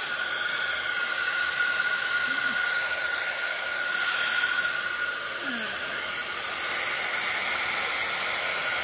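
Craft heat gun blowing steadily: a rushing hiss of hot air with a steady whine from its fan motor, melting white embossing powder on stamped card.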